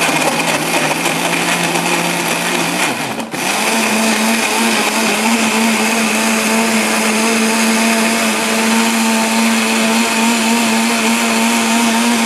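Countertop blender motor running steadily, pureeing raw sweet potato and kale with ice water. About three seconds in it dips briefly and comes back at a higher pitch, then runs steady.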